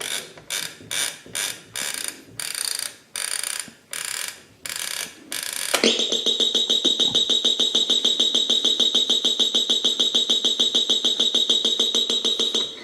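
Alarm buzzer of a vintage Panasonic flip clock radio going off. First comes a series of about ten short rasping bursts that grow longer. About six seconds in it turns into a loud continuous buzz with a fast pulse, which cuts off suddenly near the end.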